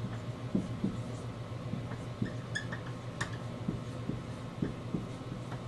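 Marker pen writing on a whiteboard: short, irregular strokes and taps, with one brief squeak about two and a half seconds in and a sharp click a little later, over a steady low hum.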